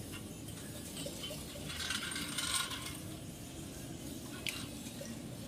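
Small metal brake wheel-cylinder parts clinking and scraping as they are handled. There is a burst of scraping and rattling about two seconds in, a single sharp click near the end, and a steady low rumble underneath.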